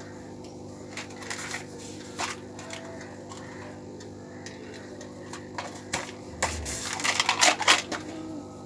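Scattered light clicks and knocks of small objects being handled, sparse at first and crowding into a quick clatter near the end, over a steady low hum.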